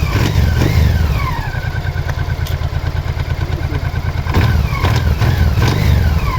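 Honda Africa Twin motorcycle engine idling and blipped twice, the revs rising and falling back each time. Sharp knocks come from the engine, the knock the owner is showing.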